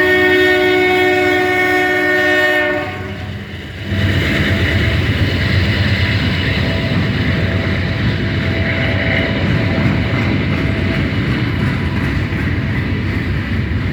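Canadian Pacific freight locomotive's air horn sounding a steady chord, cutting off about three seconds in. After a short lull, the freight train rolls past with a loud, steady rumble of wheels on rail.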